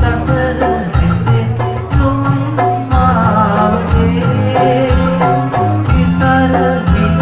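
Music with a steady beat: a song with bass, percussion and a melody line, with some singing.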